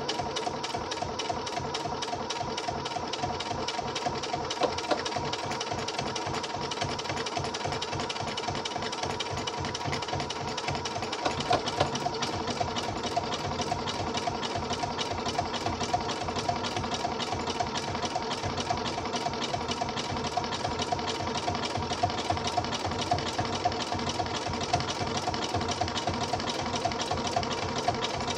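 Computerized sewing machine stitching a one-step automatic buttonhole: a steady motor whir with a rapid, even rattle of the needle.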